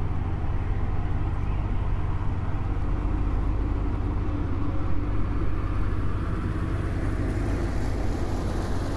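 Narrowboat's diesel engine running steadily at cruising speed, a low, even engine note under a haze of water and wind noise.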